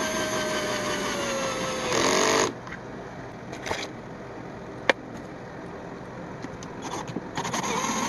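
Cordless drill-driver driving a screw on a low torque setting. Its motor whine drops slowly in pitch as the screw draws in, then ends about two seconds in with a brief harsher burst as the clutch gives out before the screw is fully seated. A sharp click comes near the middle, and the drill whines again near the end on the next screw.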